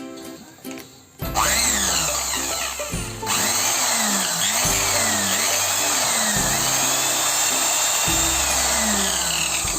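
A small electric power tool motor starts about a second in and runs loudly, its pitch sliding up and down, over background music.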